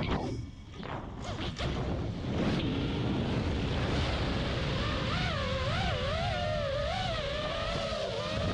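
Brushless motors of a 5-inch FPV freestyle quad (Lumenier 2206 2450kv on 5-inch props), heard through the on-board camera with wind rushing on the microphone. The motor whine drops away near the start as the throttle is chopped for a roll, leaving mostly wind, then returns about halfway through, wavering up and down in pitch with the throttle.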